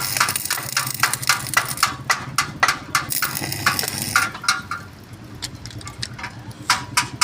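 Arc welding: the arc crackles and hisses for about the first four seconds, then fades, while sharp metallic clicks repeat about three to four times a second over a steady low hum.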